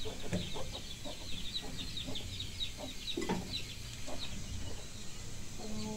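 Chickens clucking, with a steady run of short, high chirps, several a second, over the clucks.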